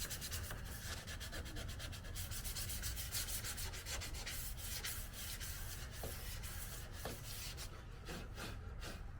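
Hand sanding of a car's body panel: quick, even back-and-forth strokes of sandpaper, thinning to a few separate strokes near the end.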